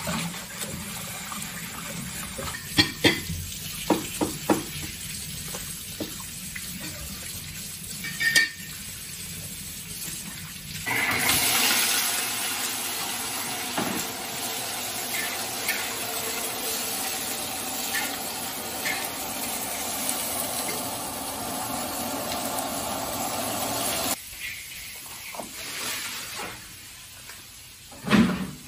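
Tap water running over leafy greens in a steel basin, with a few sharp clanks. About eleven seconds in, meat starts sizzling in a large wok as a metal spatula stirs and scrapes it; the frying stops at about twenty-four seconds, and near the end a cleaver strikes a wooden chopping board once.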